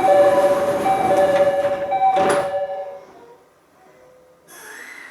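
Door chime of a JR East E501 series commuter train sounding its two-note high-low tone three times as the doors close, ending in a knock about 2.3 s in as the sliding doors shut. Near the end a fainter whine rises briefly and then glides down in pitch.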